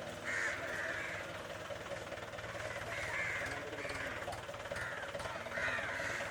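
Crows cawing several times, single calls and pairs a couple of seconds apart, over a faint steady hum.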